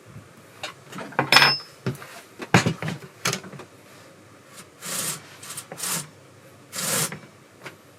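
Hand assembly of a Husqvarna 540XP Mark III chainsaw's bar and chain: a few sharp clicks and knocks of the parts being handled, then several short scraping rubs as the chain is worked on the bar while its tension is set.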